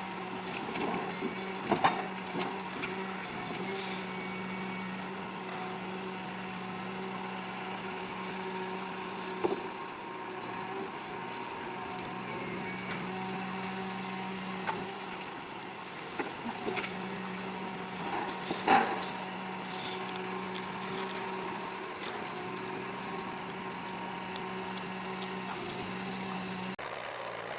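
Heavy logging machine running steadily, with a few sharp knocks, the loudest about two seconds in and again near two-thirds of the way through.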